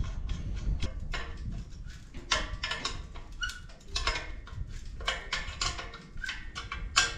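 Irregular metallic clinks and knocks, some briefly ringing, from the exhaust pipe and its clamp bracket being fitted by hand on a Ferguson TEF20 tractor.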